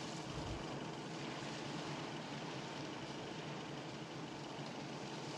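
A steady hiss of sea and wind with a boat's engine running low and even underneath.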